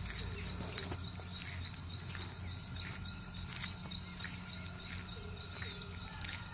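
Insects trilling steadily at a high pitch, with short bird chirps now and then and a low steady rumble underneath.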